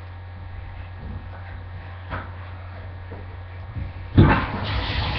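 A low steady hum with a couple of faint knocks, then about four seconds in water suddenly starts gushing loudly and keeps running.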